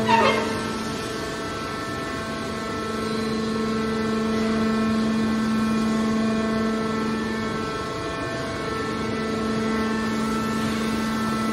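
Hydraulic scrap metal baler's power pack humming steadily, a pitched mechanical drone. A brief loud sound falling in pitch comes right at the start.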